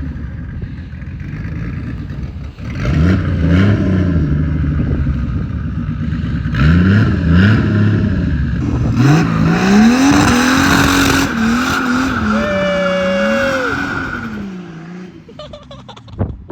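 A car engine revving up and falling back several times in quick succession, with a brief high squeal near the end of the revving.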